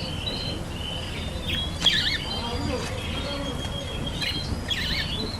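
Small caged parrots, budgerigars and lovebirds, chirping: scattered short, high chirps and whistles, busiest about two seconds in and again near the end.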